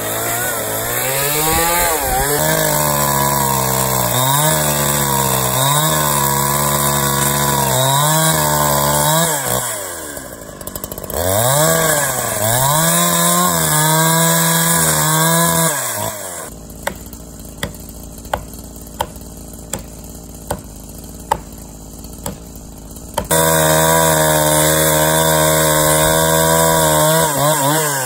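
Two-stroke chainsaw cutting into a tree trunk at full throttle, its pitch sagging and recovering again and again as the chain bites. It eases off about ten seconds in and picks up again. About sixteen seconds in it gives way to a quieter stretch of six or seven seconds with a sharp tick roughly every two-thirds of a second, then jumps straight back to full-throttle cutting.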